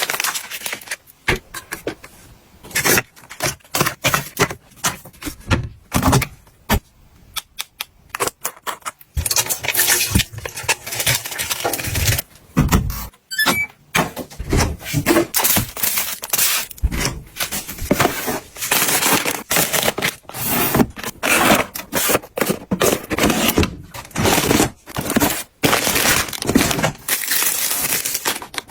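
Plastic packaging and containers being handled: irregular clicks, knocks and crinkling, with a quieter stretch between about two and nine seconds in.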